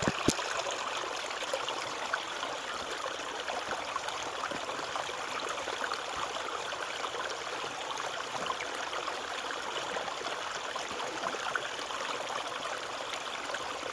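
Small stream flowing steadily over stones, a constant rushing of water, with a couple of sharp clicks just at the start.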